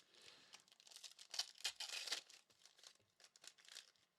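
Faint crinkling and tearing of a trading-card pack wrapper being handled and opened, a dense flurry of crackles in the middle and a few smaller rustles after.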